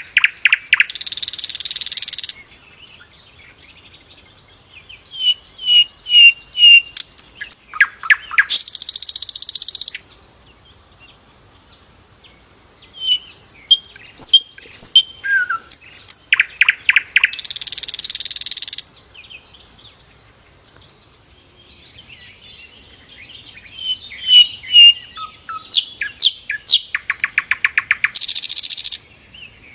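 Sikatan londo flycatcher singing the same loud phrase four times, about every eight or nine seconds. Each phrase is short high whistled chirps, then a fast rattle, then a harsh hissing buzz lasting about a second and a half. Softer chirps fill the gaps.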